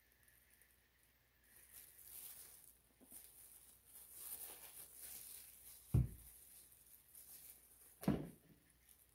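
Faint handling noise: light rustling with two dull thumps about two seconds apart, as paint bottles and cups are moved about on the work table.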